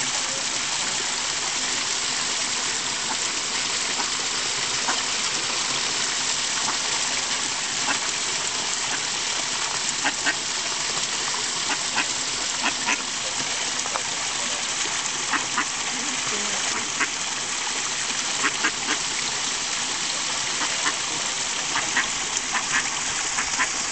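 Ducklings peeping in many short, sharp calls, scattered at first and coming more often from about ten seconds in, over a steady rush of running water.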